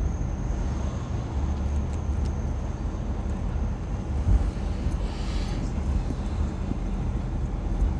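Steady low rumble of a car on the move: road and engine noise, with a brief hiss about five seconds in.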